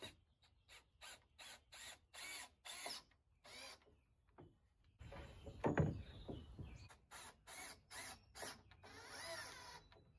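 Cordless drill driving screws into pressure-treated lumber in a series of short bursts, the motor speed rising and falling with each squeeze of the trigger. There is a louder thump of wood a little before the middle.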